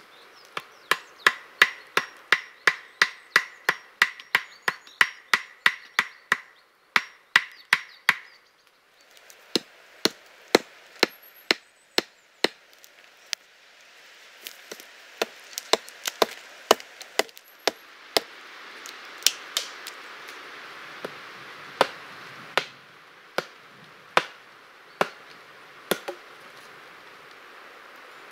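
Hammering on a wooden pole frame: a fast, steady run of sharp knocks, about two and a half a second, for the first eight seconds, then slower, irregular blows.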